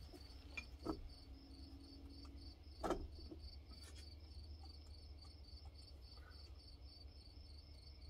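Faint, steady cricket chirping, an even rapid pulsing, over a low hum, with a few small metal clinks from handling a carburetor and its mounting nuts, the loudest about three seconds in.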